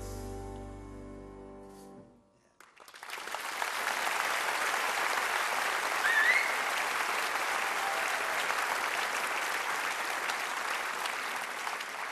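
The last held chord of a song fades out, and after a short pause an audience applauds steadily. About six seconds in there is a brief whistle.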